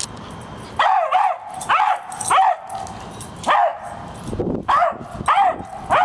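A beagle barking up into a tree at a squirrel it has treed, baying on and off: about eight short, high barks, each falling in pitch.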